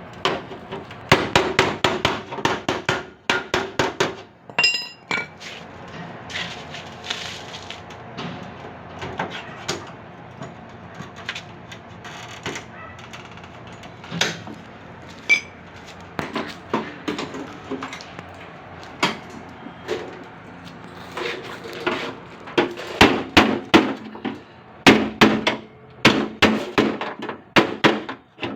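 Hammer blows on the sheet metal of a car door, in quick runs of taps with scattered single strikes between: panel beating during bodywork repair.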